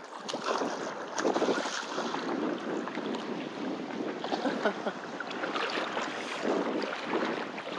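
Wind buffeting the microphone over small waves washing onto the beach: a steady, uneven rush of noise.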